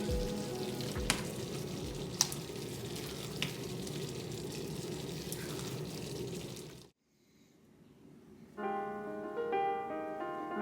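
Food sizzling in a frying pan under background music, with a few light clicks. About seven seconds in it cuts to silence, and then a piano tune begins.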